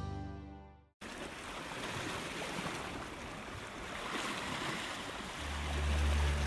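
Sea surf washing in, a steady rush that starts about a second in after music fades to silence. Low music notes come back in near the end.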